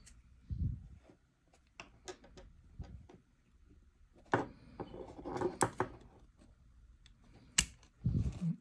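Plastic shell of a Subaru remote-head key being pried open by hand: scattered sharp plastic clicks as the clips give, a stretch of scraping in the middle, and low handling thumps about half a second in and near the end.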